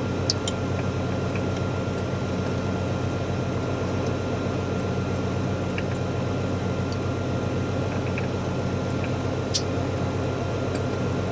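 Cirrus SR22's six-cylinder piston engine and propeller running steadily at low ground power, heard inside the cabin as an even drone with hiss and a thin steady tone.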